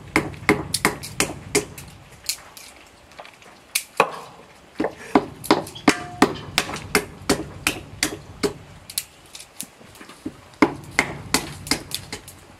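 Walnuts being cracked on a stone block with a wooden stick: quick runs of sharp knocks and shell cracks, about two or three a second, with brief pauses.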